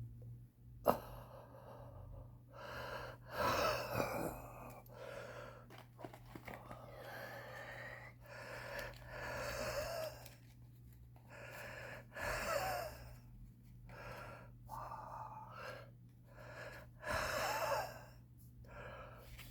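A cigarette smoker's wheezing, laboured breathing: raspy, gasping breaths in and out, coming every second or two with short pauses between. There is a sharp click about a second in, and a low steady hum underneath.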